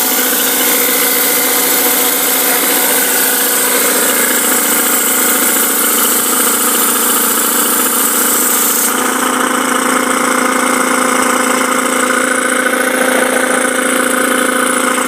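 Homebuilt air compressor, an E.L. Smith piston pump driven by an electric motor, running steadily and pumping air on its first start, with a steady hum and a high hiss. About nine seconds in, the hiss drops away and the hum's low tone grows stronger.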